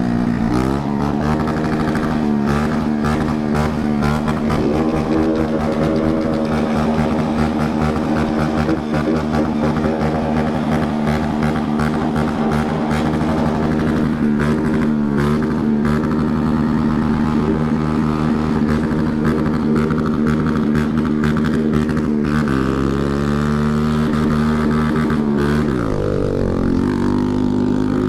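Shineray 50 cc scooter engine with a straight, unmuffled exhaust, running at high revs under way. Its note dips a few times as the throttle is eased, then climbs again.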